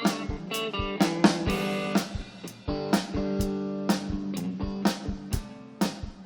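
Band playing a blues-rock guitar intro: strummed guitar chords over a steady drum beat, about two hits a second, with no singing.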